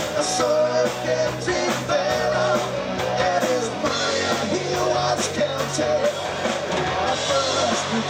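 Live rock band playing: a singer's vocals over electric guitars, bass and drums.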